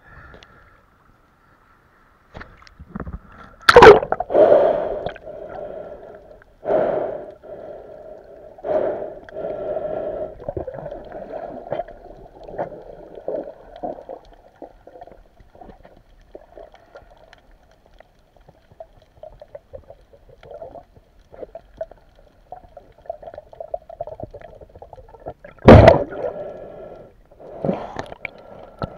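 Muffled sea water sloshing and gurgling, heard by a camera held at and under the surface while snorkeling, with two sharp splashes, one about four seconds in and one a few seconds before the end.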